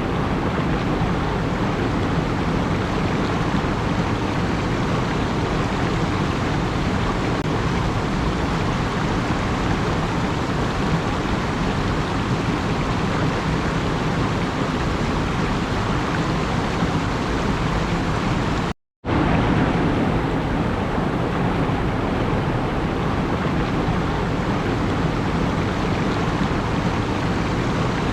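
Steady, even rushing noise with no rhythm or swells, broken once about two-thirds through by a brief cut to total silence.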